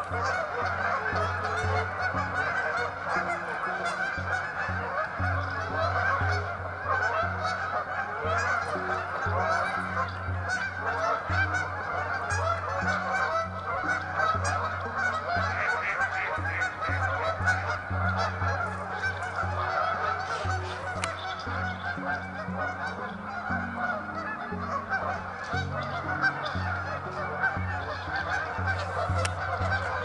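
A large flock of Canada geese honking continuously, many calls overlapping at once.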